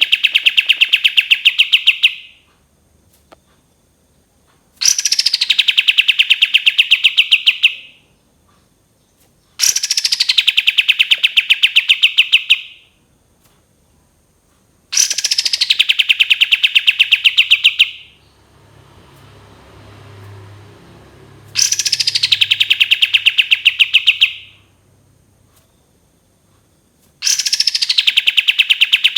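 Kapas tembak songbird singing its long rapid trill: each phrase opens with a quick falling whistle and runs into about three seconds of fast, even pulses, repeated roughly every five and a half seconds. A faint low rumble sits in one gap about two-thirds of the way through.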